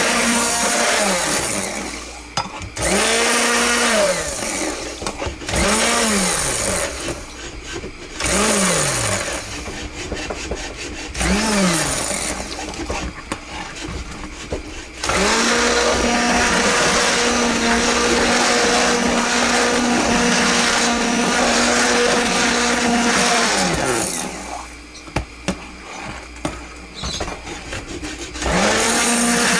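Electric stick blender whirring in a bowl of soapmaking oils and powdered clays, its motor pitch rising and falling with each short pulse. After several pulses it runs steadily for about nine seconds, stops, and starts again near the end.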